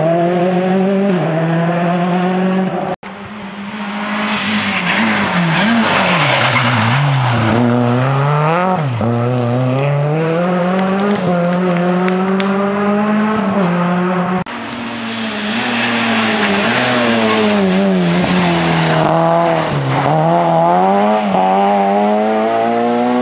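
Rally cars at full speed on a special stage, one after another. Their engines rev up and fall away repeatedly through gear changes and lifts, with tyres squealing and gravel spraying as the cars slide. The sound breaks off abruptly a few seconds in and again about two-thirds of the way through as one car gives way to the next.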